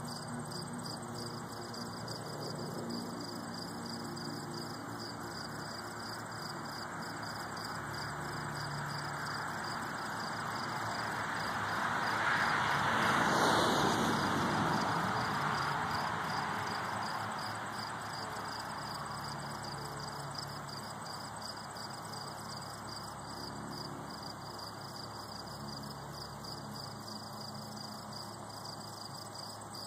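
Crickets chirping in a steady pulsing trill. A passing vehicle's noise swells up to its loudest about halfway through and then fades away.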